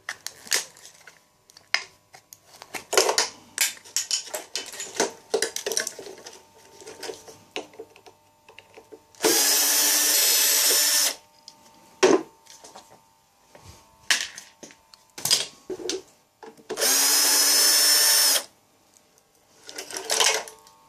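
Scraping, cracking and knocking as rigid foam insulation is pried and broken off an electric water heater with a metal blade. Two steady power-tool runs of about two seconds each come about ten seconds in and again about seventeen seconds in, and they are the loudest sounds.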